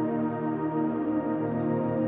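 Relaxing ambient background music of soft, held chords.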